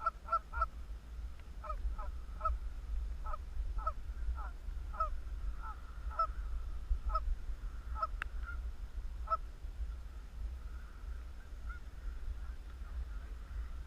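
Canada geese honking: a string of short, clipped honks, about one or two a second, thinning to fainter scattered calls after about nine seconds, over a low steady rumble.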